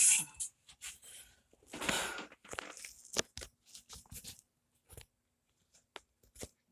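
Scattered short clicks and brief rustling noises, with short gaps of near silence between them.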